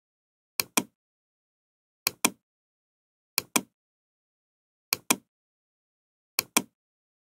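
Pairs of short, sharp clicks, the two in each pair about a fifth of a second apart, repeating evenly about every one and a half seconds with dead silence between.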